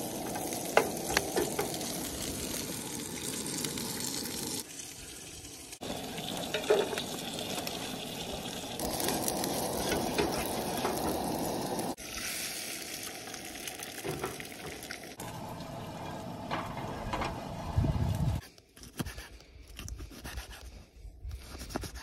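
Bacon, and later beaten eggs, sizzling in frying pans on a two-burner propane camp stove, with clicks of tongs against the pan. The sizzle breaks off abruptly several times and, after about 18 seconds, gives way to quieter scattered knocks.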